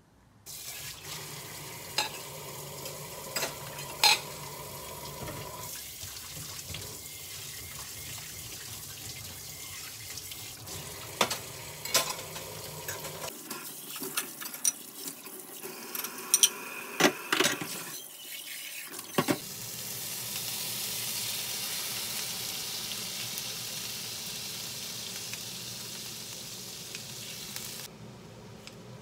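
Dishes being washed at a kitchen sink: plates, pots and utensils clink and knock as they are rinsed and set on a stainless steel dish rack under a running tap. Past the middle the clinks stop and a steady rush of tap water takes over.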